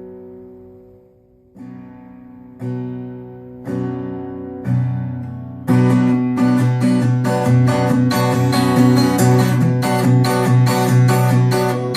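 Acoustic guitar played solo with no singing. A chord rings out and fades, then single chords are struck about a second apart, and from about halfway through it breaks into fast, steady strumming.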